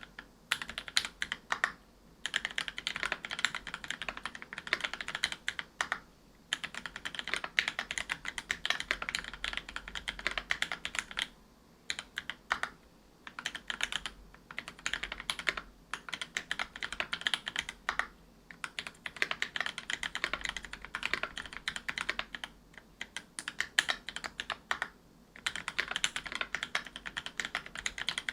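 Fast typing on a Whale 75 mechanical keyboard with Gateron Silver Snow 65g tactile switches lubed with Krytox 205g0, in a brass plate under GMK keycaps: dense runs of keystroke clacks with short pauses between bursts.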